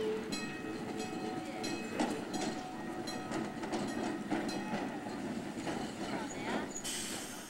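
Los Angeles Railway yellow streetcar rolling past with a steady rumble and a string of sharp clacks from its wheels over the rail joints. A short burst of hiss comes near the end.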